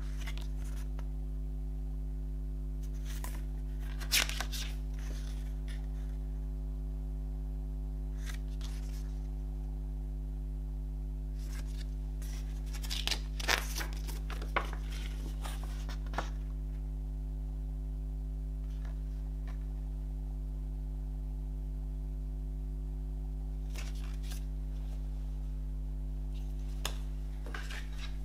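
Paper pages of a CD booklet being turned and handled, heard as a few brief rustles and flicks scattered through, the clearest about four seconds in and in a cluster around the middle. Under it runs a steady low electrical hum.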